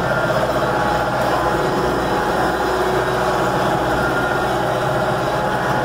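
Farm tractor engine running at a steady speed, a constant drone with no change in pitch or level.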